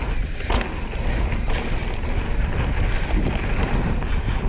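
Wind buffeting the microphone over the rolling noise of knobby mountain-bike tyres on a dry, sandy dirt trail during a descent. A sharp clack about half a second in, with a few lighter knocks from the bike after it.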